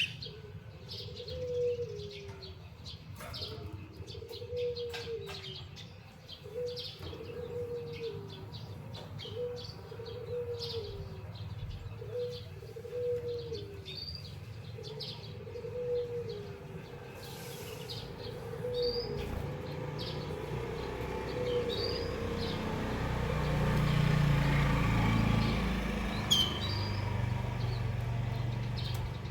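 Small cage finches giving short, high chirps at intervals, over a low, falling cooing call that repeats about every second and a half, like a dove's coo. A low rumble swells about two-thirds of the way in and fades near the end.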